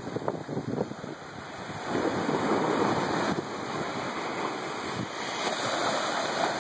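Small Gulf of Mexico surf at high tide breaking and washing up the sand in a steady hiss of foam, growing louder about two seconds in.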